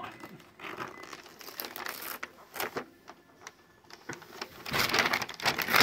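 Wrapping paper crinkling and tearing in small pieces as a small child unwraps a gift, with a louder, longer tear near the end.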